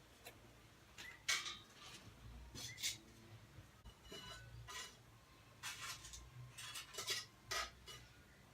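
Faint metallic clinks and scrapes as hot coals are set on the lid of a cast-iron camp oven. The clinks come singly about a second in and near three seconds, then in a quick cluster in the second half.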